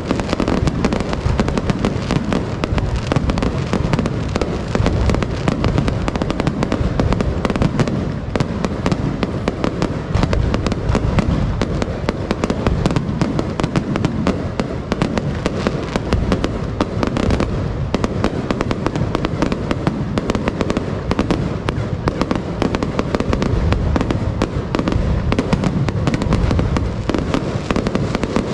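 Fireworks bursting in a dense, continuous barrage, bang after bang too close together to separate, with crackling between them.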